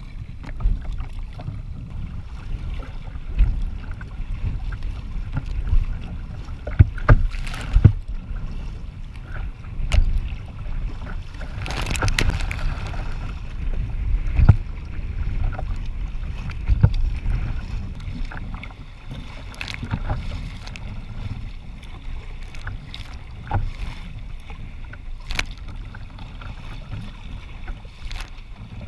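Sea kayak surfing downwind through choppy waves: water splashes and slaps against the hull in irregular sudden bursts, over a steady rumble of wind on the microphone.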